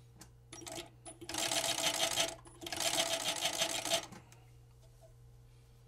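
Fur sewing machine (overseaming machine with twin feed discs) stitching. After a couple of brief starts it runs in two bursts of about a second each, with a rapid, even stitching rhythm, then stops. A steady low hum sits underneath.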